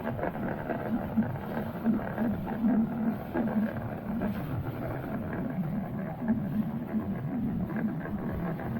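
Small boat underway on the water: an outboard motor running steadily under wind and water noise.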